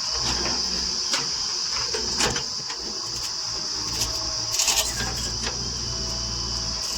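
Steady high-pitched insect chirring over the low rumble of a diesel engine running, with a few sharp clanks scattered through.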